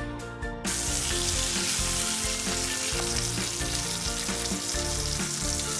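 Beef steak, garlic and asparagus sizzling steadily in melted butter in a frying pan. The sizzle starts about half a second in.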